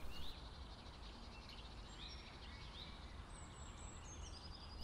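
Faint outdoor ambience with distant birds chirping, short high calls scattered throughout and a brief trill near the end.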